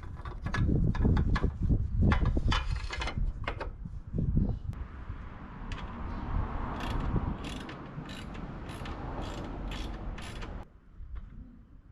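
Hand tool work on a motorcycle: knocks and metal handling noise, then a socket ratchet clicking in an even rhythm of about two to three clicks a second as a bolt is turned, stopping near the end.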